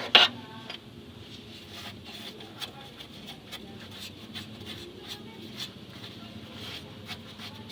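Two sharp knocks right at the start, followed by scattered light clicks and taps.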